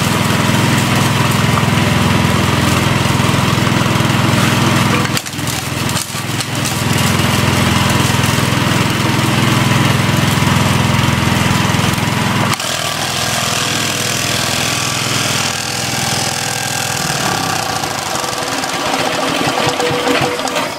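Engine-driven impact mill running loud and steady, with two brief dips about five and six seconds in; about twelve seconds in its low drone drops away and it runs on quieter. The noise came from a rock lodged just out of reach of the hammers, which the owner first took for a ruined rear seal.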